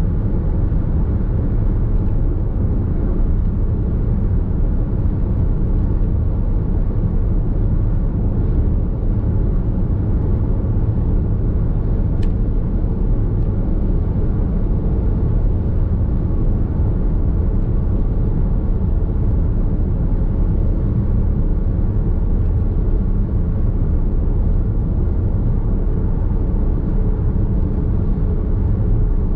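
Steady road and tyre noise with low rumble inside the cabin of a Nissan X-Trail Hybrid cruising at expressway speed.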